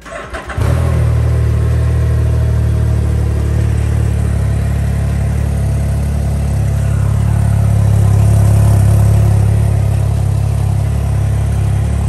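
Can-Am Ryker three-wheeler's engine on its stock exhaust starting on the electric starter, catching within about half a second and then idling steadily. It grows slightly louder for a couple of seconds a little past the middle.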